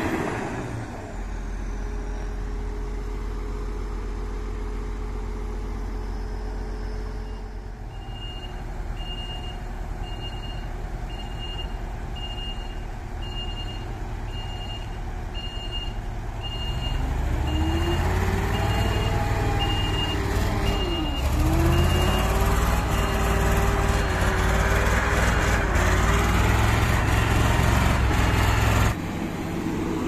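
Heavy diesel engines of a crawler bulldozer and a UD Nissan concrete pump truck running steadily. Through the middle a backup alarm beeps evenly, about three beeps every two seconds, and in the second half an engine revs up under load, louder, its pitch rising and wavering.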